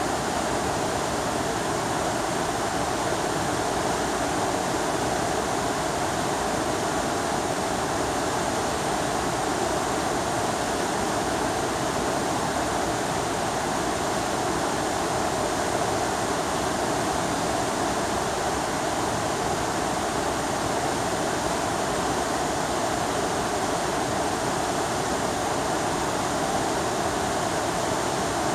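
Rupert River rapids rushing over rocks: a steady, unbroken rush of whitewater.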